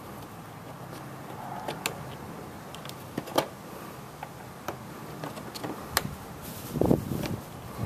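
Scattered sharp clicks and taps of a screwdriver working the Phillips head screws of a Honda Metropolitan scooter's plastic floor pan, with a duller knock near the end.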